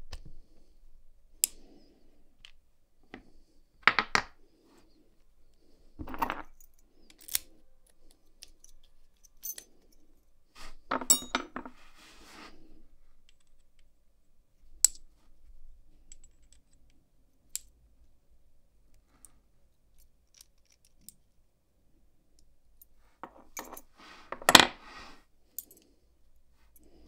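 Small brass and steel padlock parts clicking and clinking in the hands as the plug of an American Lock 1100 is pushed out of its cylinder housing with a plug follower. There are a few short clusters of clicks, and a louder metallic clatter a little before the end.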